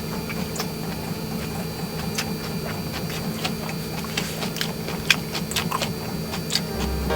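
A wood campfire crackling, with irregular sharp pops, over a steady low hum.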